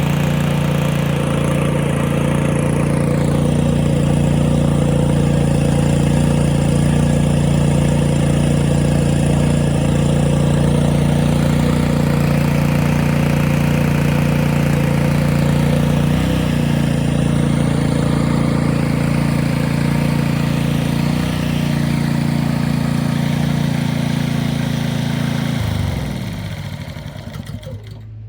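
Inverter generator's 208 cc gasoline engine running steadily under load. Near the end it is shut off and winds down, its pitch falling as it coasts to a stop.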